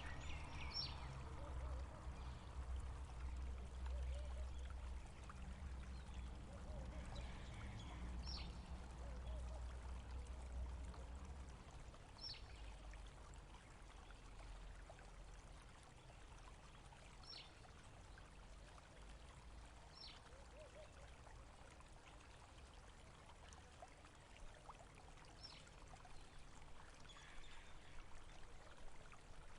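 Faint running water of a small stream, trickling steadily. A bird gives short, high, downward chirps every few seconds. A low rumble underlies the first dozen seconds and then fades.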